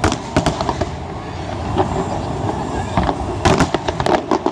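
Aerial fireworks going off: two or three sharp bangs at the start, then a lull, and a rapid cluster of cracks from about three seconds in.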